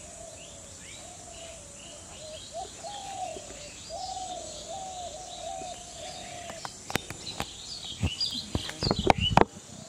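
Birds calling: a mid-pitched arching call repeated over and over, with higher chirps above it. From about seven seconds in comes a run of sharp knocks and thumps, loudest near the end.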